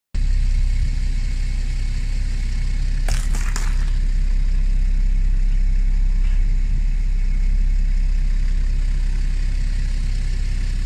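A car engine running low and steady as the tyre rolls over three raw eggs, with a short burst of cracking about three seconds in as the shells break.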